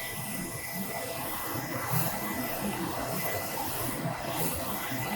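Focus Alpha Max 6250 UV flatbed printer running mid-print: a steady mechanical hiss and hum with a faint high steady whine.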